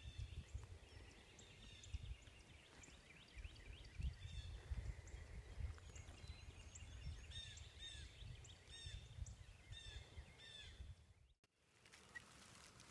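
Small songbirds chirping and singing in the woods, many short high notes and quick falling whistles, over a low rumble on the microphone. The sound drops out briefly near the end.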